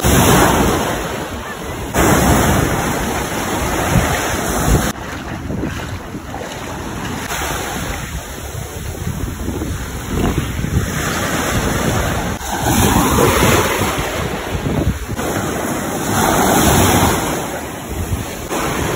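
Ocean surf washing onto a beach, with wind rushing over the microphone. The noise swells and falls every few seconds and shifts abruptly several times.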